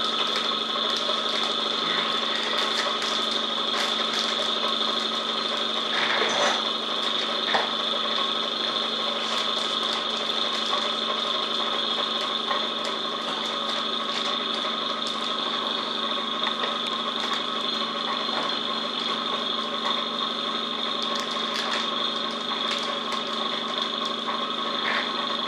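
Vacuum pump running steadily, drawing down the vacuum bag over a fibreglass wing layup, with a few brief handling noises from the bag.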